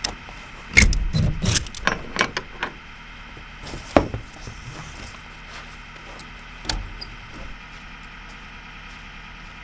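A run of sharp clicks and knocks in the first three seconds, then a single louder knock about four seconds in and another near seven seconds, over a low steady background hum.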